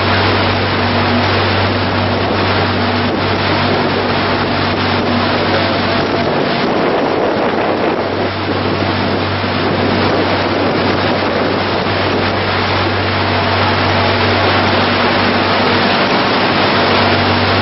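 A sightseeing tour boat under way: its engines hum steadily under the rushing of water churned up in the wake, with wind blowing on the microphone. The low engine hum fades for a few seconds in the middle, then comes back.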